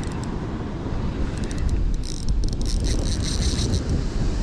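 Wind buffeting the microphone over breaking surf. About a second in, a run of fast, thin clicking from a spinning reel being worked lasts for a couple of seconds.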